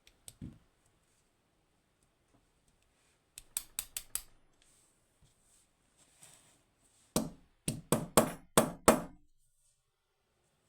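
Small metal lock parts and tools clicking and knocking while a pin-tumbler lock is taken apart: a quick cluster of light clicks about three and a half seconds in, then a run of five or six louder knocks near the end, as a stubborn pin or driver is worked out of the lock.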